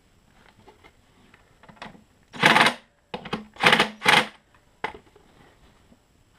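Cordless DeWalt power driver run in three short bursts, driving fasteners on the generator, with small clicks of handling in between.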